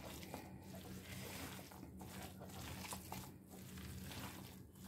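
Faint, soft squishing and rustling of a hand kneading a damp, coarse dough of crushed sweet corn and rice flour in a steel bowl, in slow strokes about every second and a half, over a steady low hum.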